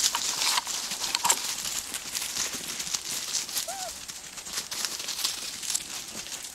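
Norrbottenspets puppies scampering and scuffling over dry fallen leaves, the leaves crunching and rustling under their paws. There is a short faint squeak a little under four seconds in.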